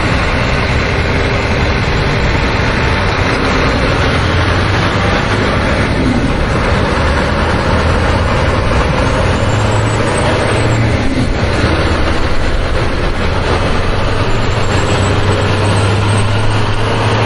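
A steady, loud truck-like engine drone with a low hum, running unbroken throughout.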